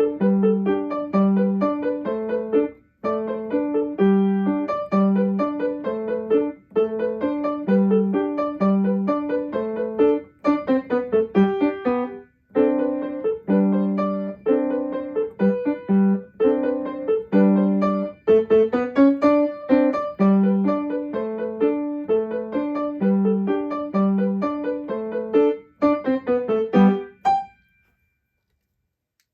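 Piano playing a short elementary piece, smooth connected notes in the left hand under short, detached notes in the right hand, meant to sound like raindrops. It ends with a final high note about 27 seconds in.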